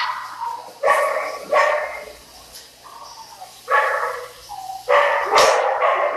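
Shelter dogs barking in their kennels: about five loud barks, each starting sharply and trailing off, spaced a second or so apart.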